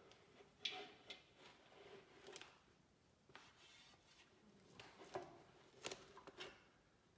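Near silence broken by a handful of light clicks and taps, the sharpest about a second in and a cluster near the end.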